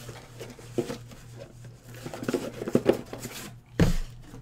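Shrink-wrapped cardboard boxes of trading cards being handled and set down on a stack on a table: scattered light knocks and rustles, then a louder thud near the end, over a steady low electrical hum.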